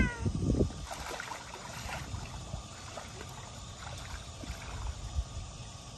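Pool water splashing and lapping as a toddler kicks and paddles, with a few louder splashes in the first second.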